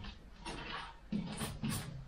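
Cloth rag wiping a dusty painted steel van body panel and window, a few short rubbing swishes.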